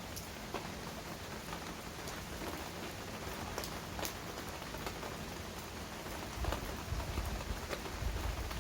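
Steady rain falling on hard surfaces, with individual drops ticking sharply now and then. From about two-thirds of the way in, a low rumble that swells and fades joins it and grows louder near the end.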